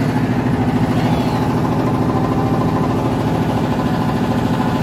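Motorboat engine running steadily with a fast, even pulsing beat.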